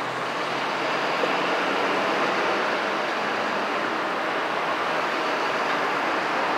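Steady rolling noise of passing vehicles, growing a little louder in the first second.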